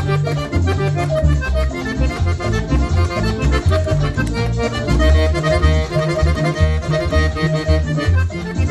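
Button accordion playing a vallenato tune: a quick, busy treble melody over bass notes that pulse in a steady rhythm.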